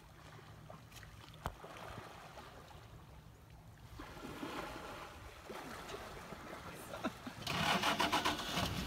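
Water splashing and lapping in a shallow river where elephants are bathing, louder and busier for about a second near the end. Faint voices sound in the background.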